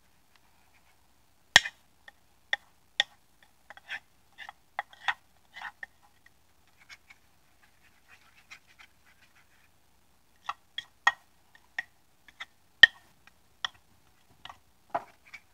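A metal utensil scraping and tapping on a ceramic plate, knocking a butter-and-flour paste off into a skillet: irregular light clicks and scrapes. There is a sharper knock about a second and a half in, a quieter stretch in the middle, and another sharp knock later on.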